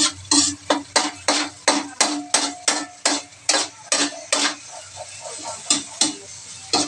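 Spatula scraping and knocking against a stainless steel wok while stirring, about three strokes a second, slowing after about four seconds.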